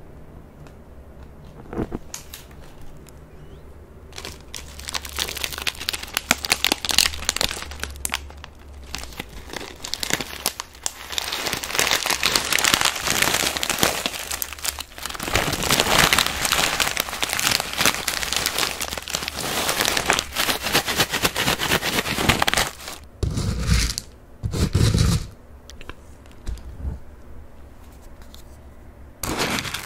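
Plastic packaging of a 밭두렁 fried corn puff snack crinkling and rustling as it is handled, in long stretches of dense crackle, with a few dull thumps about three quarters of the way through.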